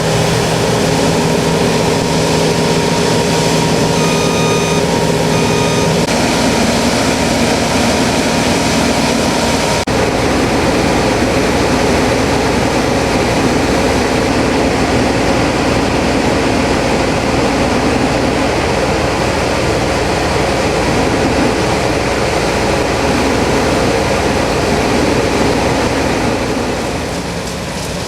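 New Holland CX8090 combine harvester on Poluzzi tracks running steadily while harvesting rice. Two short electronic beeps sound about four and five seconds in.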